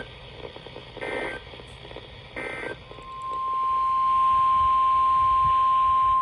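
Emergency Alert System signal from NOAA Weather Radio: the tail of one short buzzy digital data burst, then two more bursts about a second and a half apart. About three seconds in comes the single-pitch 1050 Hz weather-radio warning tone, swelling briefly and then holding steady, over faint radio hiss.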